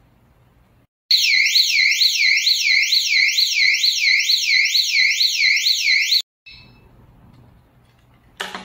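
Electronic siren of a solar-powered alarm-and-strobe unit sounding loudly, its pitch warbling rapidly up and down about three times a second. It starts abruptly about a second in and cuts off suddenly about five seconds later.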